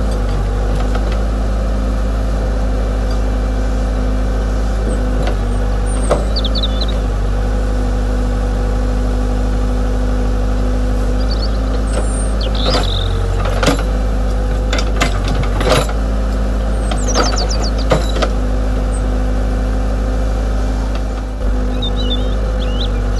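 Radio-controlled model excavator running with a steady mechanical drone, with scattered sharp clicks and a few short high squeaks as it works.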